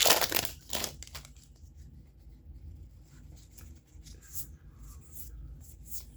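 Foil booster pack wrapper crinkling and tearing open for about the first second, then soft scattered ticks and swishes of trading cards being handled.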